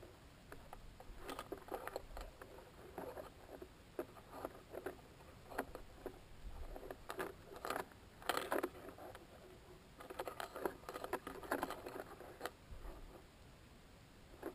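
Irregular scratching and clicking from the near-space balloon payload's enclosure around the onboard camera, in spells a second or two long with quieter gaps between.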